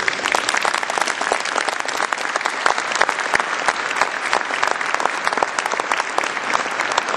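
A large audience applauding, many hands clapping together. It breaks out suddenly and carries on at an even level.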